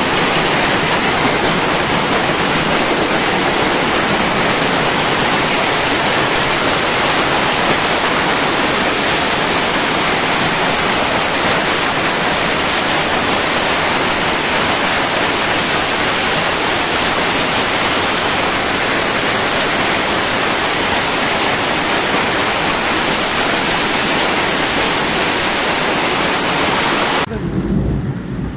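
Heavy hailstorm: hailstones and rain pelting down in a dense, steady hiss. Near the end it cuts off suddenly, giving way to a quieter low rumble.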